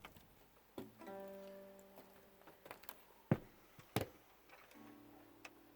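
Guitar, sparse and quiet: a plucked note rings out about a second in, two sharp clicks fall in the middle, and another soft note sounds near the end.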